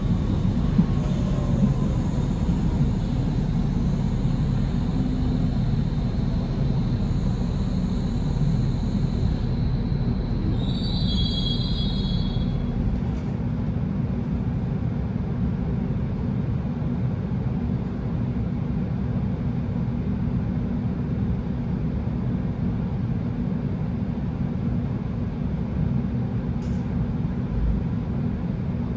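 Cabin ride noise of a Hamburg DT5 U-Bahn train running: a steady low rumble of the wheels on the track, with a faint high whine through the first third. About a third of the way through, the wheels give a short high squeal lasting about two seconds.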